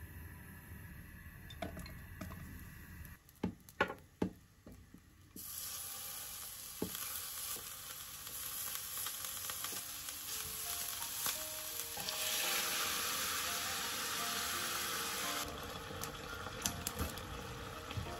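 Meat-stuffed green peppers frying in oil in a Staub cast-iron pot, with a steady sizzle. A few sharp clinks come first, the sizzling starts about five seconds in, and it is loudest for a few seconds past the middle.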